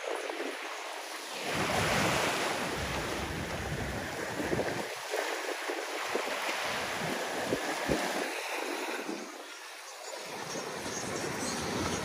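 Small waves washing onto a sandy beach, with wind gusting over the microphone in bursts of low rumble from about a second and a half in, easing briefly near the end.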